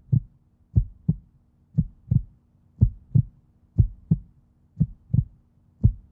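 Low double thumps in a heartbeat rhythm, one pair about every second, over a faint steady low hum: a heartbeat-style sound effect on the opening title.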